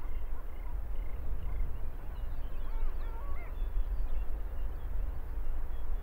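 Wind rumbling on the microphone across open tundra, with faint scattered whistled calls from distant small animals, one looping call about three seconds in.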